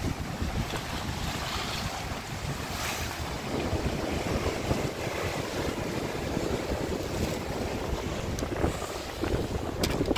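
Wind buffeting the microphone, mixed with the steady wash of surf breaking against a rocky cliff shoreline.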